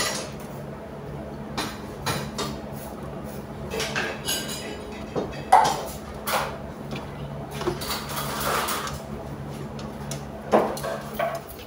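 Scattered light metal clinks and knocks of hardware being handled during installation of a kitchen fire suppression system, a few of them sharp, over a steady low hum.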